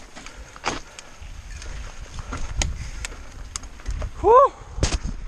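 Mountain bike rattling down a rough dirt and rock trail: irregular sharp clacks and knocks from the bike over wind rumbling on the microphone. A little over four seconds in, a brief squeal rises and falls in pitch, the loudest sound.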